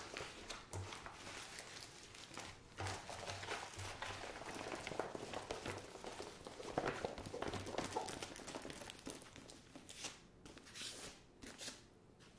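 Rustling and crinkling of a diamond-painting canvas, its clear plastic film and paper cover, as it is handled and rolled, with a few sharper taps near the end.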